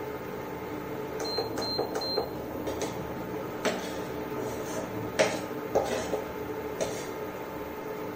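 Metal spoon knocking and scraping in a frying pan as ground spice masala is stirred into hot oil, over a steady electric hum. Three short high electronic beeps come about a second in.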